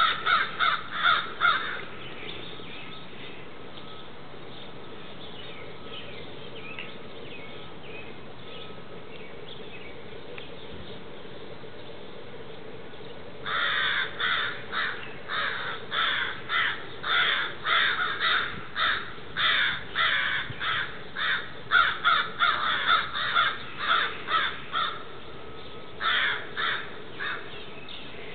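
Crows cawing harshly, mobbing a great horned owl: a few loud caws at the start, then a long run of rapid caws about two a second from about halfway in, a short break, and more caws near the end.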